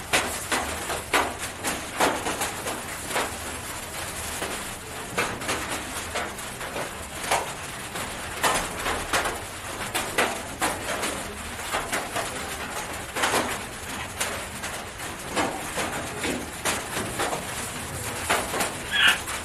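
Thin plastic gloves crinkling and rustling irregularly as a hen is held and its eye and nostrils are wiped with a cloth, with a short bird call near the end.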